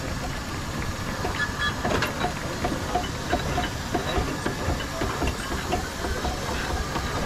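Miniature steam showman's engine under way: a steady hiss of steam with a run of light clicks and ticks, a few a second, from its working motion.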